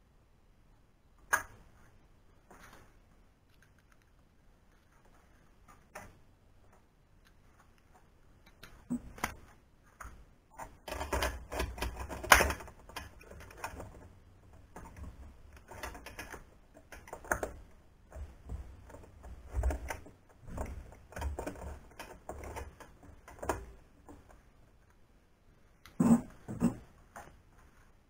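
Irregular clicking, tapping and rattling of a hand tool and small plastic parts being handled against the aluminium-extrusion frame of a CNC router during wiring work. A single sharp click comes about a second in, then a busy stretch of clicks and knocks runs through the middle, with two more clicks near the end.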